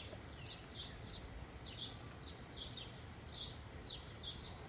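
Small birds chirping: short, high, falling chirps, about three a second, over a faint low background.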